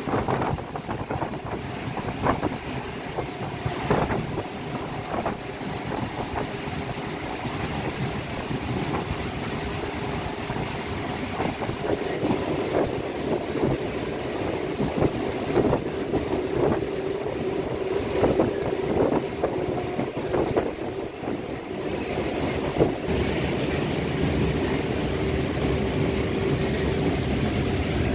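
Old Toshiba-built Cairo Metro Line 1 train car running along the track, heard from inside the car: steady wheel-and-rail running noise with irregular knocks and rattles, and a steady hum that grows stronger about halfway through.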